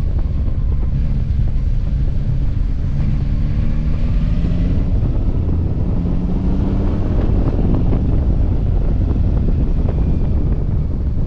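Yamaha Tracer 9 GT's three-cylinder engine running as the motorcycle is ridden, its pitch rising twice as it accelerates. Heavy wind noise buffets the microphone.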